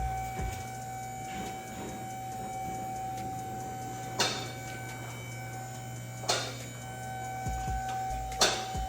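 A car being raised on a jack: a steady mechanical hum with three sharp clacks about two seconds apart.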